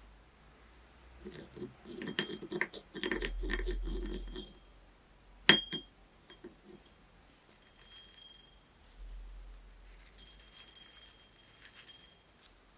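Wooden pestle knocking and clinking against a ceramic suribachi mortar: a quick clatter of knocks a couple of seconds in, then one sharp ringing clink. Later, softer rustling as the desiccant packet is handled.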